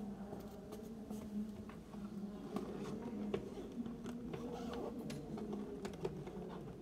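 Faint Gregorian chant, voices holding slow sustained notes that step from pitch to pitch, with scattered light clicks and knocks throughout.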